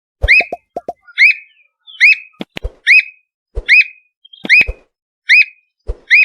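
Squirrel cuckoo singing: a steady series of about eight sharp whistled notes, each rising and then dropping, repeated a little more than once a second. Short low knocks sound next to several of the notes.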